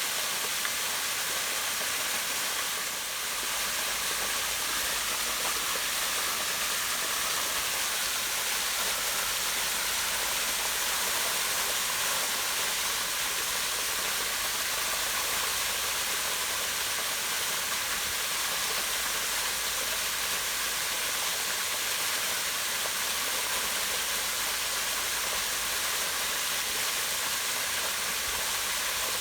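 Small waterfall pouring steadily over rocks into a pond: a continuous, even rush of falling water.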